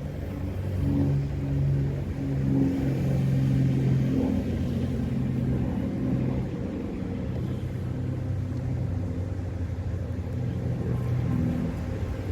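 Wind buffeting the microphone in a low rumble, with a low droning hum that swells and changes pitch in steps.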